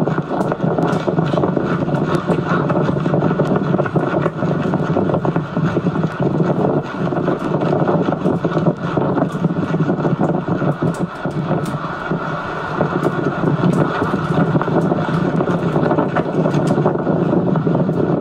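Steady rushing wind noise on a camcorder microphone during a horseback ride, heard as played back through a TV speaker, with scattered faint clicks.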